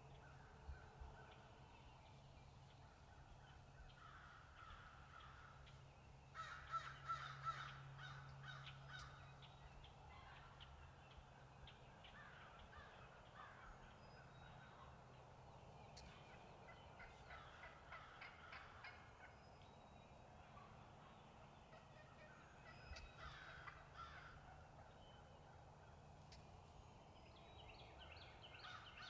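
Wild turkey gobblers gobbling, faint, several times over; the loudest gobble comes about six seconds in.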